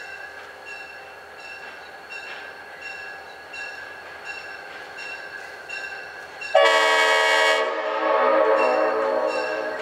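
Approaching locomotive's air horn sounds one long, loud blast starting about two-thirds of the way in, shifting slightly lower partway through. Before and under it, a bell rings at a slow, even beat, about once every three-quarters of a second.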